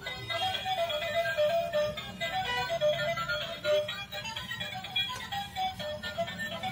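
Battery-operated toy auto rickshaw playing an electronic tune as it drives, a stepping melody over a steady low hum.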